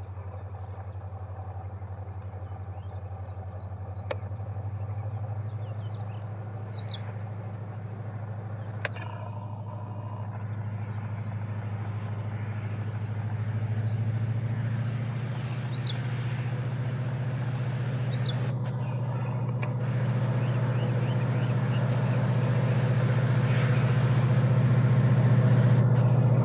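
WDP4D diesel-electric locomotive's EMD two-stroke engine running under load as the train approaches, a steady low drone that grows steadily louder. Its dark exhaust smoke shows it working hard.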